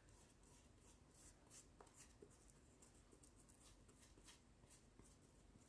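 Faint, irregular scratchy strokes of a paintbrush applying yellow paint to gesso-coated cardboard and craft pieces.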